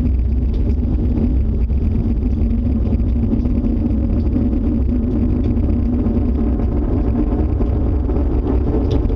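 Loud, steady low roar of storm wind, which those sheltering fear is an approaching tornado.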